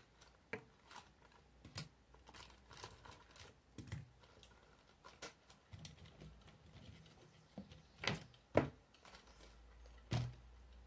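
Faint handling of stationery: light clicks, taps and rustling as pens, a highlighter and a ruler are taken from a zippered fabric pencil case and set down on paper. Two sharper clacks come about two-thirds of the way through, and another near the end.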